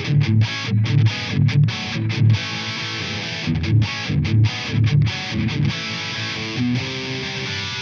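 Tokai Love Rock LS-136F electric guitar with humbucking pickups, played through an overdriven amp: a rhythm riff of short, punchy chords, moving to held, ringing chords near the end.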